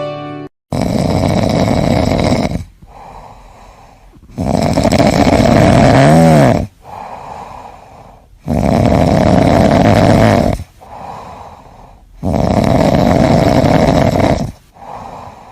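A cat snoring loudly: four long rasping snores about every four seconds, with quieter breaths out between them.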